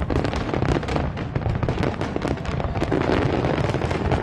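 Aerial fireworks going off in a rapid, continuous barrage: many sharp bangs a second over steady crackling.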